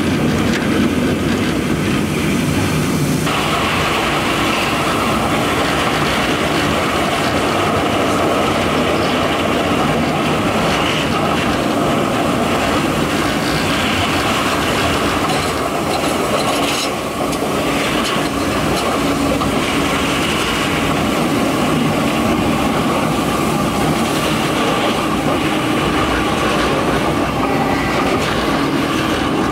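LRT Line 1 light-rail train running between stations, heard from inside the carriage: a steady noise of wheels on rails and traction motors.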